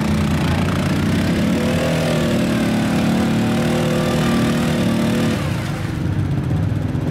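Arctic Cat ATV engine held at high revs under load as the quad churns through deep mud. The pitch climbs over the first few seconds, holds, then drops back about five seconds in.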